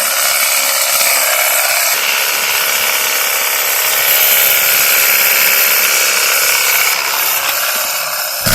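Cordless battery-powered pressure washer gun running steadily, its motor and pump whining as it sprays shampoo foam from its foam can.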